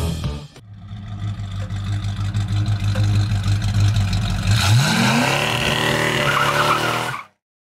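1966 Ford Mustang GT's 289 V8 idling steadily through its dual exhaust, then revved up a little over halfway through, the pitch rising and holding higher until the sound cuts off suddenly.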